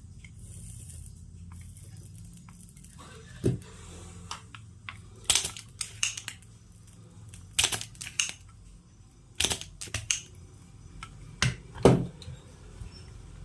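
Scattered sharp metallic clicks and taps of small hand tools on an air-conditioner circuit board while the optocoupler's anode and cathode pins are being removed, some coming in quick clusters of two or three. A steady low hum runs underneath.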